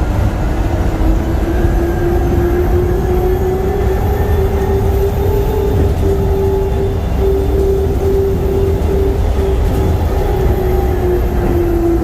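DFW Skylink people-mover train running at speed: heavy rumble from the running gear under a steady electric drive whine that climbs slightly over the first few seconds, holds, then sinks a little near the end.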